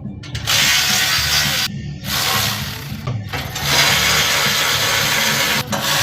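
Rough, hissing tool noise in three long stretches with short breaks between, over background music.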